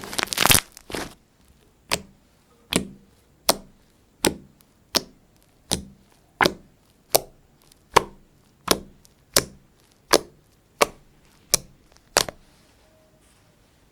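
Homemade Lifebuoy soap slime being handled: a crunchy, crinkly squish for about the first second, then about fifteen sharp pops at an even pace, roughly three every two seconds, which stop about twelve seconds in.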